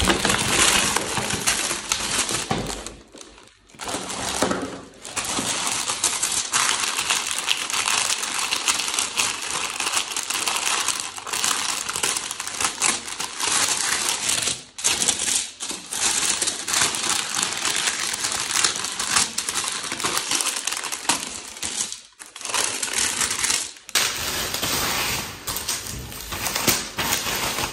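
Hands unpacking a gift, rustling and crinkling a paper gift bag, tissue paper and plastic bubble wrap around ceramic plates, with a few brief pauses.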